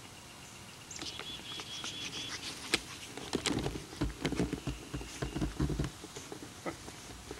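Footsteps of someone running through brush and grass while holding a camcorder, with rustling vegetation and handling knocks. The heavy, irregular thumps are loudest in the middle stretch.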